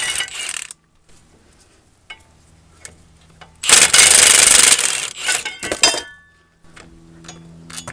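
Milwaukee M18 FUEL cordless 1/2-inch impact wrench running in two short bursts, spinning out loosened 18 mm caliper bracket bolts: one burst ends under a second in, the other runs for about a second, about four seconds in. A few light metallic clinks follow.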